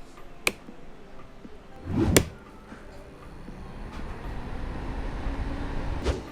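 Sharp clicks as the homemade Peltier mini fridge is switched on, then a low rushing hum of its cooling fans that builds over a few seconds and stops suddenly with a click near the end.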